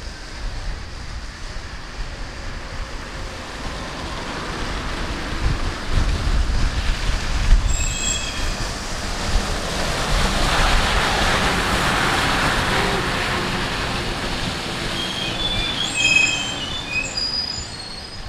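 A bus passing close on a wet road: engine and tyre hiss build to a peak about ten seconds in, then ease off. Short high-pitched brake squeals come around eight seconds in and again near the end.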